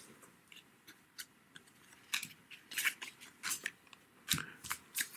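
Trading cards being handled and shuffled by hand: a series of short, crisp scrapes and snaps, sparse at first and more frequent from about two seconds in.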